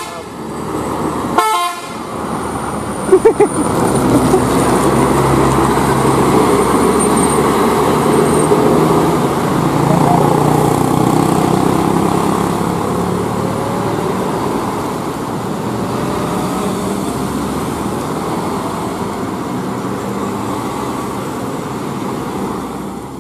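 Hino RK8 R260 bus's diesel engine running as the bus passes close by on a hairpin bend, loudest in the first half and easing off as it moves away. Brief horn toots sound in the first few seconds.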